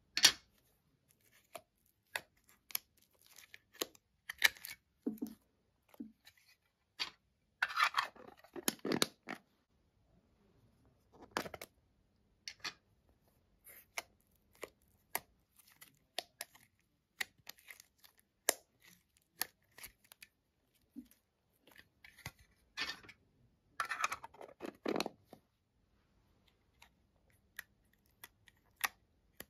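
Hands squishing and pulling thick pink slime: a string of sticky clicks and pops, with two longer bursts of crackling about eight and twenty-four seconds in.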